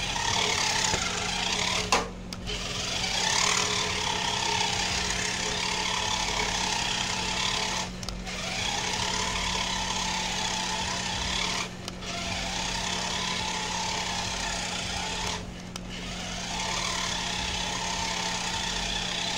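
Toy RC car's small electric drive motor and gears whirring as it drives across a tiled floor, in runs broken by four brief stops. The whine rises each time it pulls away again.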